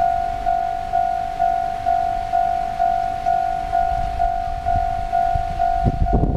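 Japanese railway level crossing's electronic warning bell ringing steadily at about two strikes a second, the signal that the crossing is closed for an approaching train. A low rumble joins in near the end.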